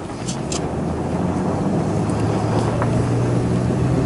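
Pickup truck's engine and road noise heard from inside the cab while driving, a steady low drone that grows gradually louder. Two short high ticks about half a second in.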